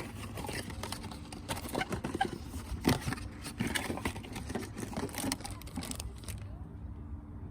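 Irregular small clicks and knocks with some rustling: small parts and packaging being handled.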